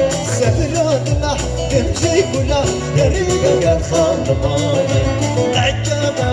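Loud festival music with a steady dance beat and a melody line over it.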